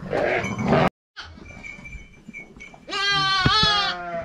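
A loud rustling noise in the first second, then, about three seconds in, a sheep gives one long, wavering bleat.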